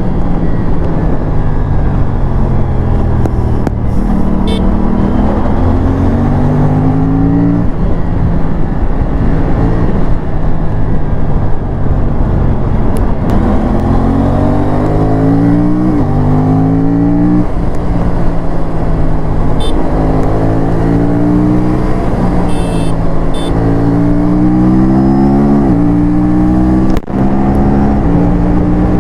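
Aprilia parallel-twin sport motorcycle engine accelerating hard through the gears, its pitch climbing and then dropping sharply at each upshift, over and over.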